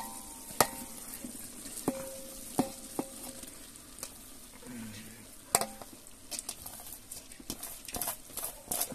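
Metal spoon stirring in a cooking pot: sharp clinks and knocks against the pot, some ringing briefly, coming closer together in the last few seconds, over a light steady sizzle of frying.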